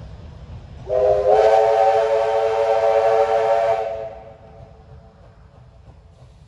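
Steam locomotive whistle blown once for about three seconds, several tones sounding together as a chord, starting about a second in and fading away.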